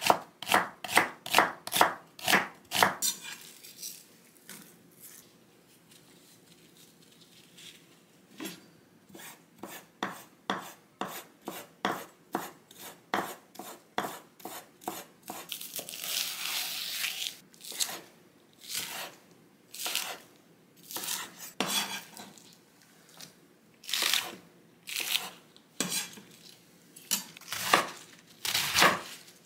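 Chef's knife chopping vegetables on a wooden cutting board. It starts with quick regular strokes, about three a second, slicing onion. After a pause come lighter cuts through chopped greens and a short rustle about halfway. Near the end come louder, more widely spaced cuts into a head of cabbage.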